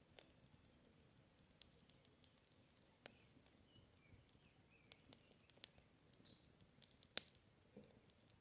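Faint campfire crackling: scattered sharp wood pops, the loudest about seven seconds in. In the middle a small bird sings a quick, high, warbling run of about six notes, followed by a second brief high call.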